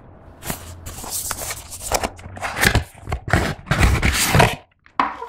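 Cardboard eyeshadow-palette packaging being handled, its paper sleeve sliding off the box. A run of rustling, scraping paper-on-cardboard sounds, loudest in the second half, with a short final scrape near the end.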